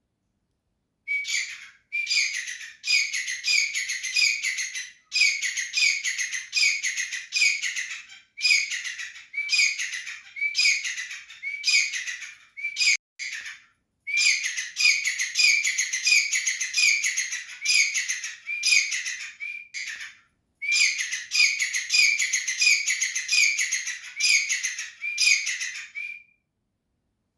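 Grey francolin calling: a loud, shrill call repeated over and over, about two notes a second, in long runs broken by a few brief pauses.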